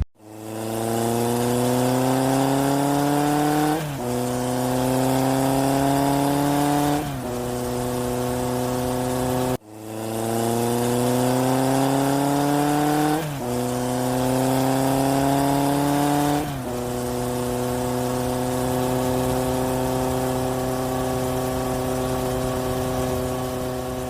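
Dubbed-in sound effect of a car engine accelerating through the gears. Its pitch climbs, drops at two upshifts, then holds steady. The effect cuts off about ten seconds in and plays over again from the start.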